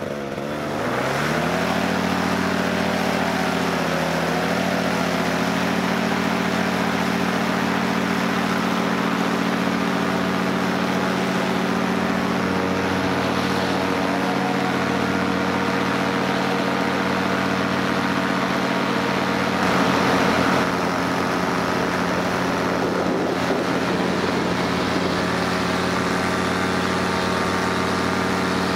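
Paramotor trike's two-stroke engine and propeller revving up to full throttle in the first couple of seconds for the takeoff run, then running steadily at high power through the climb-out. A brief louder swell comes about twenty seconds in.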